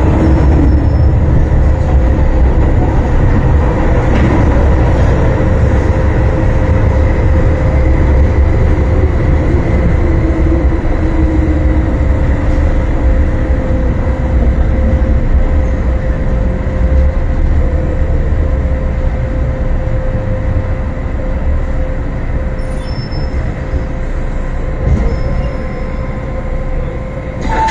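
MTR M-Train electric multiple unit running through a tunnel and pulling into a station, heard from inside the car: a loud rumble of wheels and running gear with a steady whine from the traction equipment. It eases off towards the end as the train comes to a stop.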